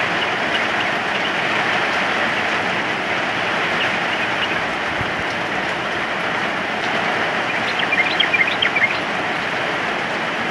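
Steady rain with a yellow-vented bulbul (trucukan) calling. A few faint short chirps come early on, then a quick run of louder short chirps about eight seconds in.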